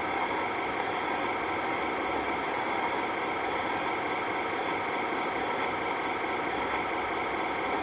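A steady mechanical drone with hiss, even and unbroken.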